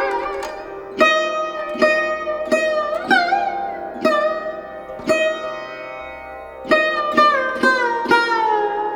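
Background music: a plucked string instrument, sitar-like, playing a slow melody of single plucked notes about one to two a second. Some notes bend in pitch, notably about three seconds in and near the end, over a steady drone.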